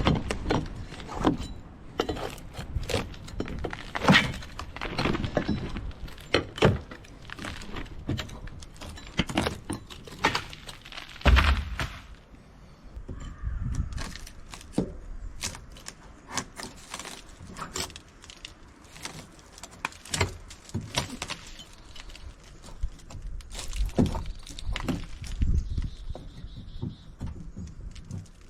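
Hand tools knocking and prying old wooden rails off a wooden boat's hull: irregular clinks, knocks and cracks of wood, with one heavier thunk about eleven seconds in.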